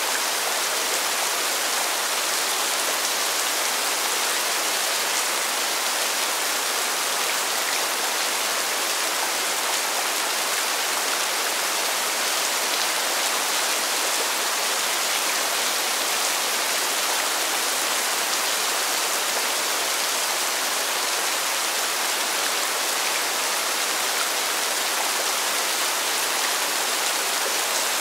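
Steady rain falling on pavement: an even, unbroken hiss of many drops that neither builds nor lets up.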